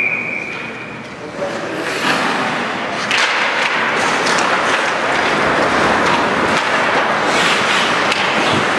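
Ice hockey play on a rink: skates scraping the ice, with stick and puck clicks, making a steady noisy hiss that builds over the first three seconds. A referee's whistle trails off at the very start.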